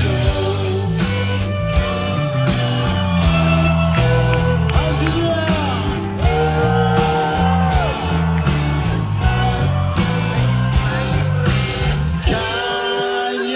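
Rock band playing live, heard from within the crowd: male lead vocal over electric guitar, bass and drums. The bass drops out near the end.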